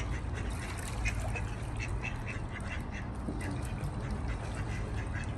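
Ducks quacking on the water, a run of short repeated calls, over a steady low rumble.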